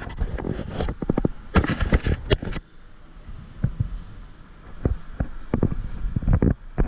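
Irregular knocks and thumps, uneven and in clusters, typical of footsteps and gear knocking as a player moves, with wind on the microphone.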